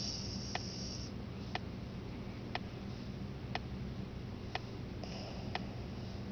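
A clock ticking steadily, one tick a second. Two short stretches of high hiss come through, in the first second and again about five seconds in.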